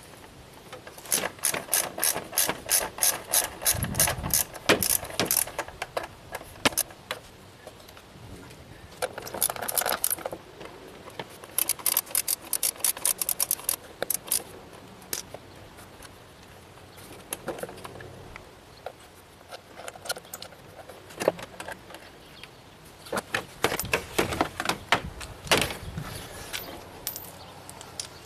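Hand socket ratchet clicking in quick runs, about four clicks a second, as the 10 mm bolts holding the plastic engine cover are backed out. Metal tool clinks and knocks come between the runs.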